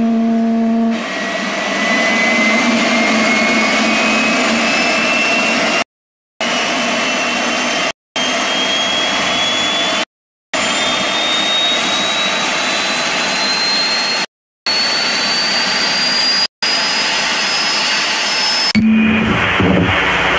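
Jet engine roar with a thin whine that climbs slowly in pitch, cut off to dead silence five times for a fraction of a second each. Near the end it gives way to crackling TV static and glitch noise.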